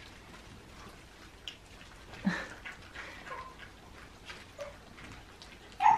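Cocker spaniel puppies eating soft food from a shared steel bowl: faint lapping and small clicks, with a few short squeaks and whimpers, the loudest a brief rising one about two seconds in.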